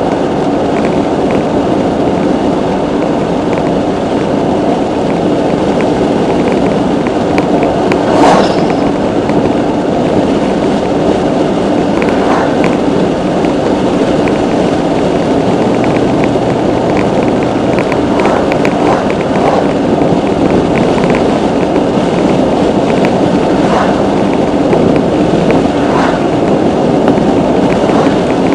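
Steady road and tyre noise of a car driving at highway speed, heard inside the cabin, with a few short sharp clicks or knocks, the loudest about eight seconds in.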